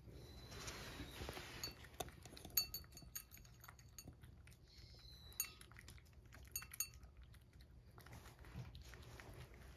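Cat licking a lickable tuna treat from a ceramic bowl: soft, faint wet licking clicks, with a few light clinks as its mouth knocks the bowl. At the start, a soft rustle as the treat packet is squeezed out into the bowl.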